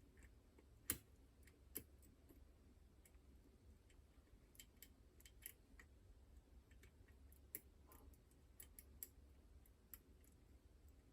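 Faint, irregular metallic clicks and ticks of lock picks working the levers inside a Chubb Detector lever lock, the sharpest click about a second in.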